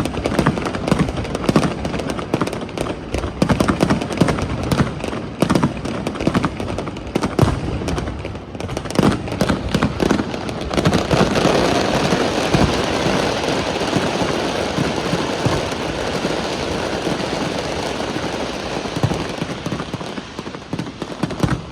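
Fireworks display: a dense, rapid run of bangs and crackling reports. About halfway through, they merge into a continuous hiss of noise that eases off near the end.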